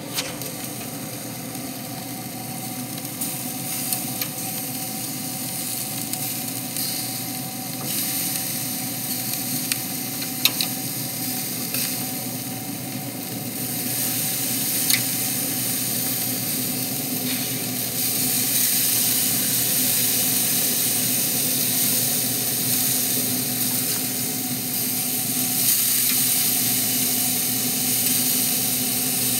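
Steaks sizzling on a hot grill grate, a steady hiss that grows louder partway through, with a few sharp clicks of a metal spatula against the grates and a faint steady hum underneath.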